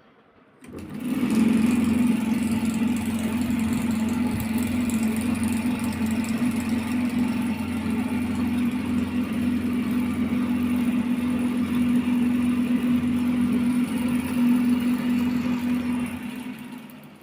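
A motor-driven machine running with a steady, loud hum. It starts about a second in and runs down near the end.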